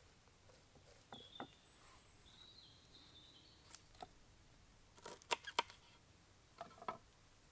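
Kitchen knife chopping fresh herbs on a wooden cutting board: a few sharp knocks in small groups, the loudest cluster about five seconds in. Faint high bird chirps between about one and three seconds in.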